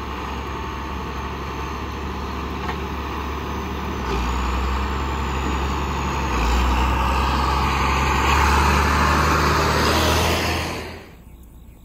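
Diesel engine of a John Deere farm tractor towing a rotary mower, running steadily and growing louder as it drives up and passes close by, then cutting off suddenly near the end.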